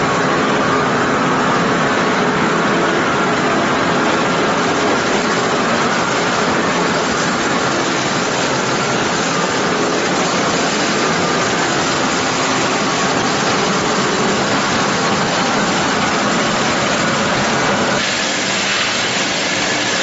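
LDPE film washing line running: a loud, steady mechanical din of the plant's machinery with several steady hums mixed in, changing in character about two seconds before the end.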